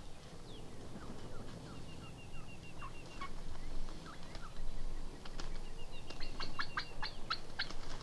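Birds calling at dawn: a fast, even trill twice over and scattered chirps, then a louder run of about a dozen sharp, quick notes in the last three seconds.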